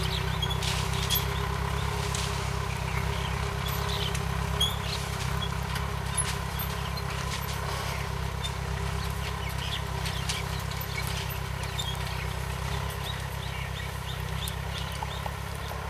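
Small tractor engine running steadily under load as it pulls a tined cultivator through the soil, growing slightly fainter towards the end as it moves away. Short high bird chirps come and go over it.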